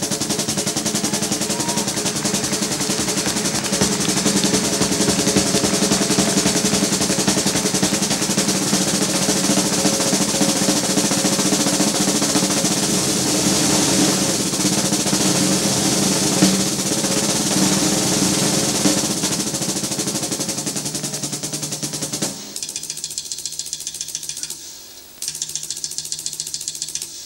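Drum roll on the snare drum of a jazz drum kit, a dense, loud, unbroken roll. About 22 seconds in it drops suddenly to a softer, sparser rapid pattern, with a short break a few seconds later.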